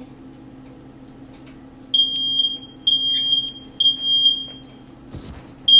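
Smoke alarm going off: three loud, high, steady beeps about a second apart, starting about two seconds in, then a short pause and the next beep starting near the end. A dull thump comes just before that last beep.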